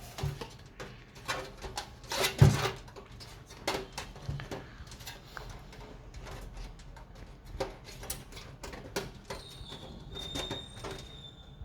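Scattered clicks, taps and knocks of computer parts being handled and fitted into a PC case, the loudest knock a couple of seconds in. A thin high tone sounds for about two seconds near the end.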